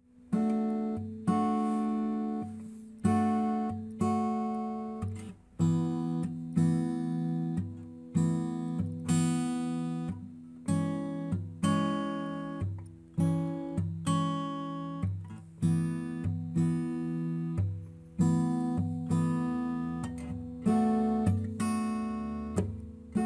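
Background music: acoustic guitar chords strummed about once a second, each one ringing and fading before the next.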